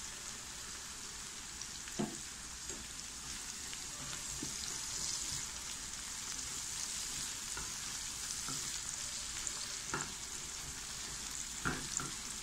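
Sliced onions and garlic sizzling steadily in olive oil in a frying pan, stirred with a silicone spatula that knocks against the pan a few times.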